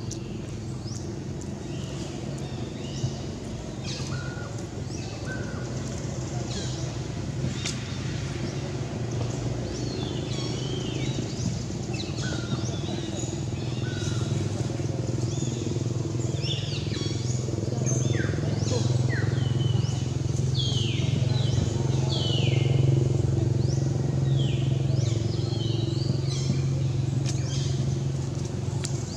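A motor engine running steadily, slowly growing louder, with birds giving many short, high, downward-sweeping chirps over it, thickest in the second half.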